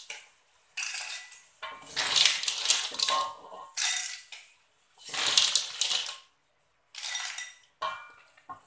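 Cooked snail shells clattering and a wooden spatula scraping against a metal wok and a bowl as the snails are scooped out, in about six separate scoops with short pauses between.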